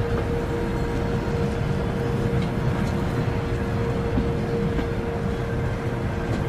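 Passenger train coaches rolling slowly past along a platform: a steady rumble of wheels and running gear, with a steady hum running through it.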